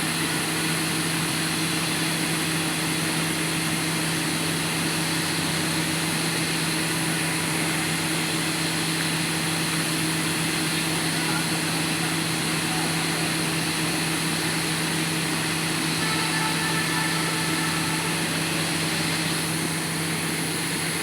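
Diesel engine of a Sany drilling rig running steadily at a constant speed, with an even hum.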